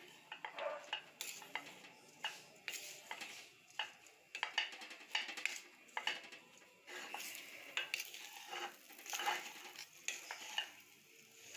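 Wooden spoon stirring and scraping dry toasted cassava flour (farofa) with meat and onions around a stainless steel pan: irregular gritty scrapes and light knocks of the spoon against the pan.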